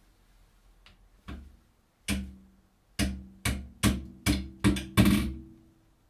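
A wooden-handled shorting tool with a wire loop tapping the terminals of a microwave oven's high-voltage capacitor: a soft knock, a sharp click, then six quick ringing strikes. There is no spark crack, because the capacitor is already fully discharged.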